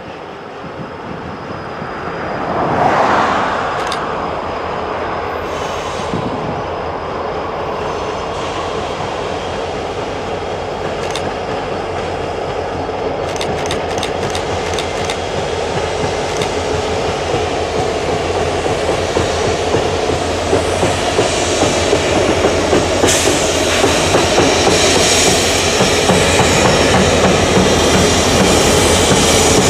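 A freight train's lead diesel locomotives approaching around a curve and passing close by, engines and wheels rumbling over the rails. The sound has a brief swell about three seconds in, then grows steadily louder as the locomotives draw alongside.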